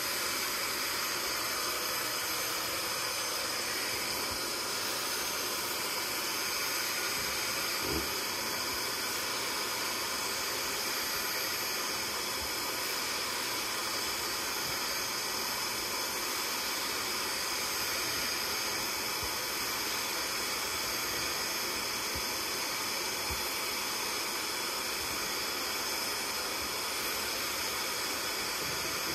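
Portable carpet extractor running steadily, its motor giving a faint high whine over a constant rush of suction as the hand tool draws water out of the carpet. A small knock about eight seconds in.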